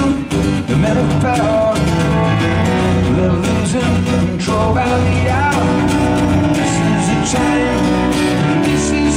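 Live rock band playing: strummed acoustic guitar over keyboards and a second guitar, with a steady beat and a man singing.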